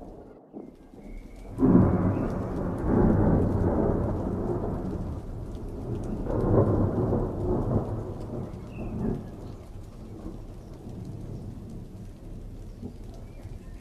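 A peal of thunder: a loud rumble breaks in suddenly about a second and a half in, swells again partway through, then rolls away and dies down.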